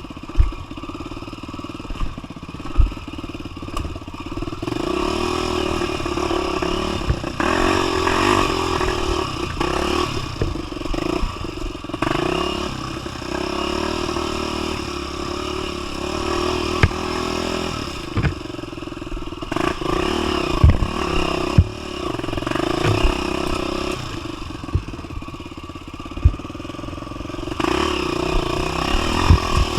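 A 250 cc single-cylinder four-stroke trail bike running, the engine revving up and down with the throttle, with frequent knocks and rattles from riding over rough ground.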